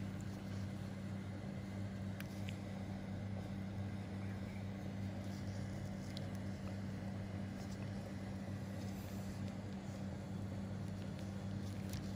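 A steady low machine hum, unchanging, with a few faint ticks here and there.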